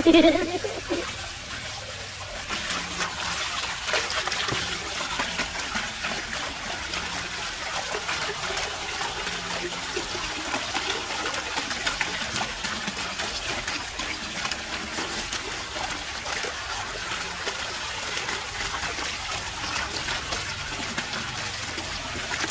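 Water gushing steadily from a well outlet and splashing over hands rinsing potatoes in the stream, starting about two seconds in.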